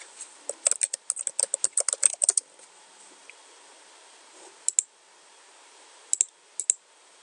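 Typing on a computer keyboard: a quick run of about a dozen keystrokes over two seconds, then a few single clicks some seconds later.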